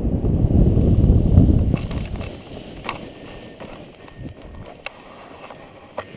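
Wind rushing over the microphone of a paraglider coming in to land, fading away about two seconds in as the glider slows and touches down. After that it is quieter, with a few sharp clicks as the wing settles.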